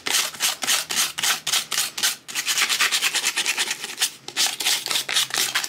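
Hand sanding pad rubbed quickly back and forth over the paper-covered edge of a wooden cutout, about five strokes a second with two brief pauses, sanding away the overhanging decoupage paper so it tears off along the edge.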